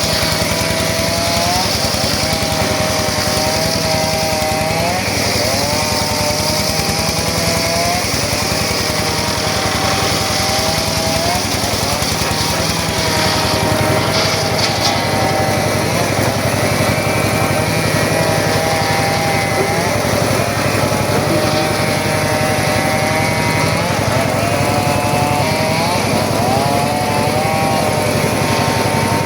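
Circular saw running and cutting through very hard sogho wood, its running pitch dipping and climbing back again and again as the blade loads up in the cut.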